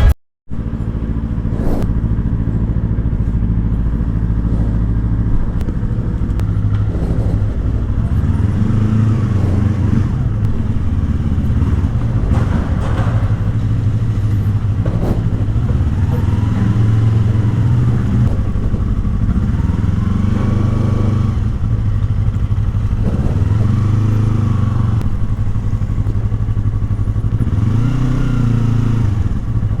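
Yamaha R25 V2's 249 cc parallel-twin engine on the move, its pitch climbing and dropping again and again as the bike accelerates and eases off.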